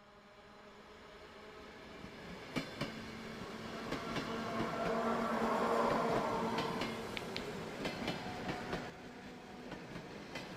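Train running on rails, its wheels clattering over the rail joints. The sound rises from near silence to its loudest about halfway through, then eases off a little.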